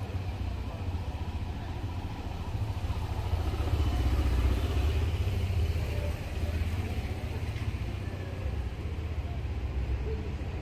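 Outdoor street traffic: a motor scooter or motorcycle passes, swelling and fading between about three and six seconds in, over a steady low rumble.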